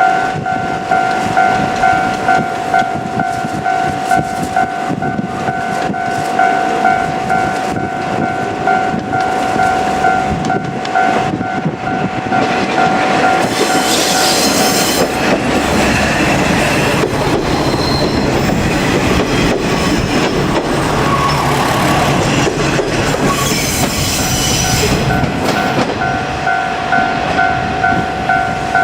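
Japanese level-crossing warning bell ringing with a steady, repeating two-tone chime. About twelve seconds in, a two-car JR Kyushu KiHa 47 diesel railcar passes with loud engine and wheel-on-rail noise that drowns the bell, which is heard again near the end once the train has gone by.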